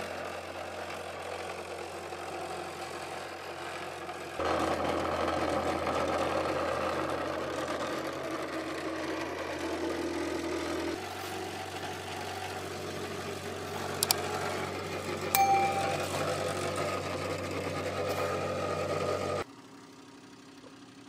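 Steady electric motor hum of a vibrating table shaking plastic roof-tile molds, with its level stepping up and down a few times and two sharp clicks about two-thirds of the way through.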